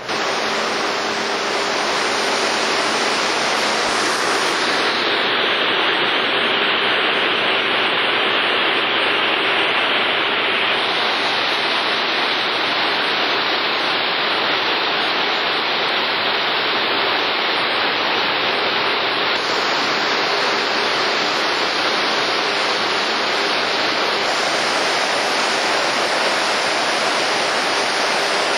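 Sea water rushing and churning past a moving cruise ship's hull and in its wake: a steady, unbroken rush of white water.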